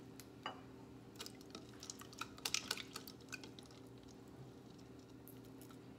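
An eggshell being tapped and lightly cracked in the hands: a scatter of small clicks and crackles, thickest in the middle couple of seconds, over a steady low hum.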